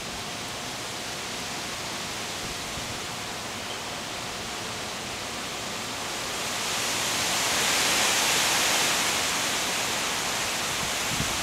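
Wind rushing through trees ahead of a thunderstorm, a steady rush that swells into a stronger gust about seven seconds in and eases slightly near the end.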